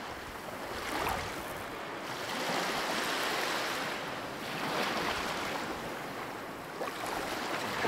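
Ocean water washing and surging near shore, a steady hiss that swells and eases every couple of seconds.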